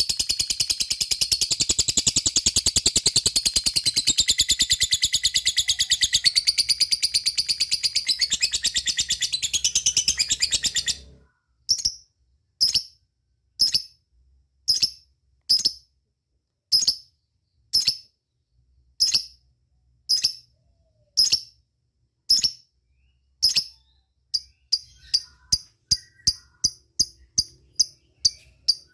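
Lovebird chattering in a long, very rapid high trill (the 'ngekek' call) that stops abruptly about eleven seconds in. Then single sharp high chirps about one a second, quickening to about three a second near the end.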